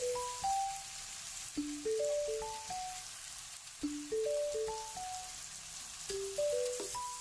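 Background music, a simple melody of short single notes, over the steady sizzle of chicken pieces frying in butter in a pan.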